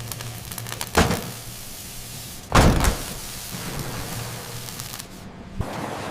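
Factory machinery: a sharp clunk, then a louder clunk about a second and a half later, over a steady low hum, with a smaller click near the end.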